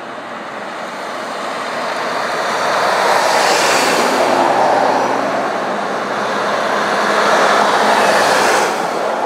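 MAN tractor unit with a curtain-sided trailer driving past at low speed: engine and tyre noise build up as it approaches, loudest about three to four seconds in as the cab goes by. It swells again near the end as the trailer's axles roll past, then falls away.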